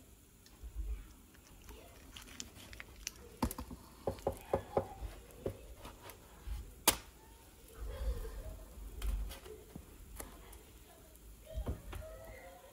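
Plastic spatula working pancakes on an electric griddle: scattered light clicks, taps and scrapes as it slides under and flips them, the sharpest click about seven seconds in.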